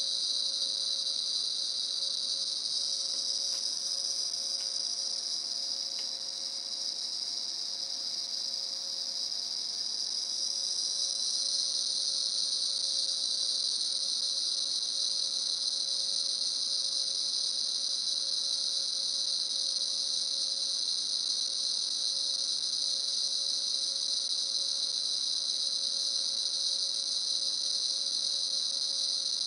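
bGeigie Nano Geiger counter clicking so fast, around 40,000 counts a minute, that the clicks merge into a steady high-pitched hiss: the sign of a strongly radioactive autunite uranium sample. It grows a little louder about ten seconds in.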